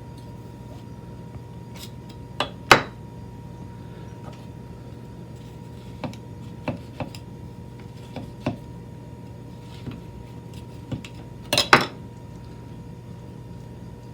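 Irregular clicks and knocks of a kitchen knife against a cutting board as vegetables are cut, loudest about two and a half seconds in and in a quick cluster near the end. A steady low hum runs underneath.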